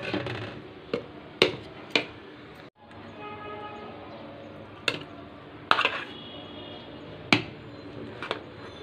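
A metal serving spoon knocking against the side of a metal cooking pot, several separate sharp knocks, as rice is spooned in layers over chicken masala for biryani. Faint background music runs underneath from about three seconds in.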